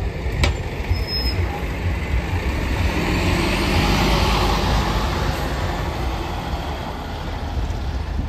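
Double-decker bus engine running as the bus moves past at close range, a deep steady rumble whose noise swells about three seconds in and eases off toward the end.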